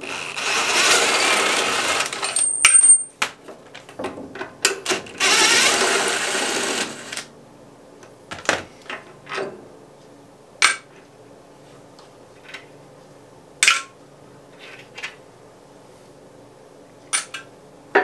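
Wrench work on the sawmill engine's mounting bolts: two long runs of rapid metallic rasping, about two and three seconds long, as the bolts are loosened, followed by scattered sharp metal clinks and taps of the wrench against the bolts and frame.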